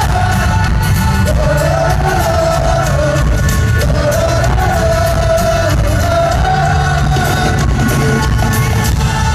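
Rock band playing live, with a sung lead vocal over guitar and drums, recorded loud from within the crowd.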